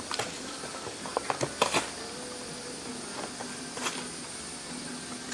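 Packaging being opened by hand, an irregular run of short crackles, clicks and rustles.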